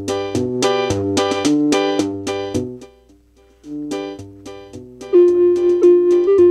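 The Fisher SC-300K boombox's built-in electronic keyboard plays a repeating pattern of bass and chord notes. The pattern stops about three seconds in, starts again half a second later, and gives way near the end to a single held note that is the loudest sound.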